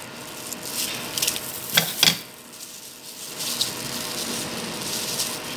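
Crinkling and rustling of a banana leaf and plastic food-handling gloves as the leaf is trimmed with scissors and folded, with two sharp clicks about two seconds in.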